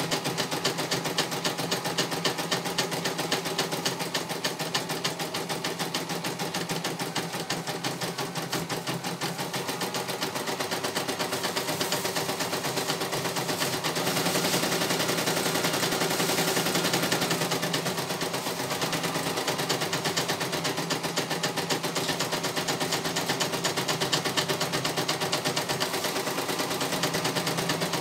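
CNY E900 computerised embroidery machine stitching out a design at speed: a rapid, even clatter of needle strokes that goes on without a break.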